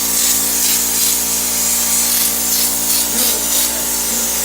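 A steady machine hum with repeated rubbing, rasping strokes over it: drywall ceiling repair work with a power tool running.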